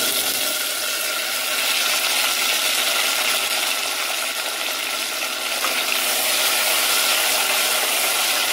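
Chopped tomatoes and shallots sizzling in hot oil in an aluminium pressure cooker, a steady hiss that starts as the tomatoes go in and keeps on.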